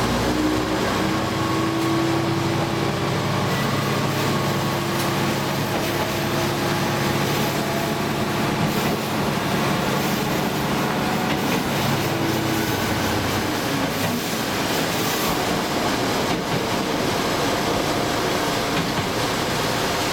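Diesel train running along the track, heard from inside its driver's cab: the engine runs under power over the steady rumble of wheels on the rails. The engine note drops away about two-thirds of the way through as the power is eased off.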